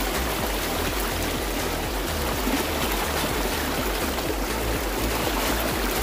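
River rapids: a steady rush of flowing water.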